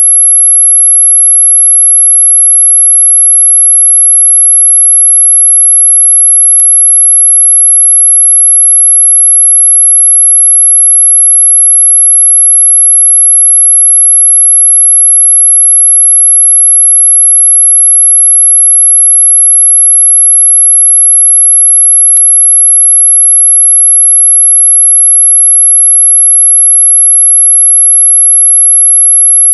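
Continuous, loud, very high-pitched pure tone played as an 'ultrasonic' mosquito-repellent sound, holding one unchanging pitch. Two faint clicks break in briefly, once about a third of the way in and again near the three-quarter mark.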